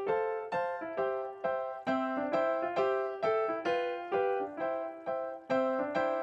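Background piano music: a steady run of struck notes, about two or three a second, each ringing and fading.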